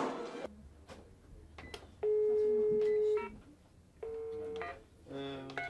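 Telephone line tone: a steady electronic beep held for about a second, then a shorter one about a second later, followed by a lower buzzing tone near the end, with faint clicks between.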